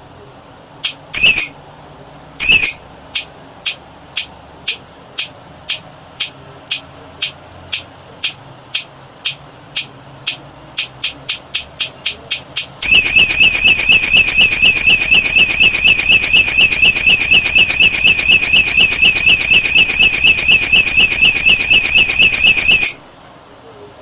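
Door security alarm unit with a built-in siren: a few short chirps, then a run of short high beeps at about two a second that speed up, and about 13 seconds in the siren goes off with a loud warbling wail for about ten seconds before cutting off suddenly. The alarm is sounding as it does when the lock is tampered with or the door is forced.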